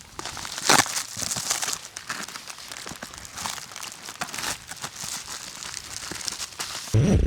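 Plastic or foil packaging crinkling and crackling as it is handled, in irregular bursts. Near the end a sudden low rumble of wind on the microphone comes in.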